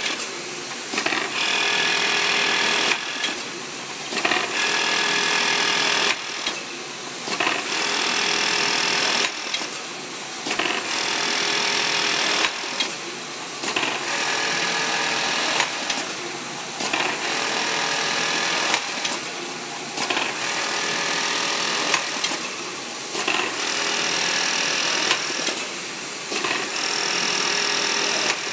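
Collating and sewing machine running in cycles: its industrial sewing head stitches in runs of about two seconds, each broken by a short pause with a click, repeating roughly every three seconds.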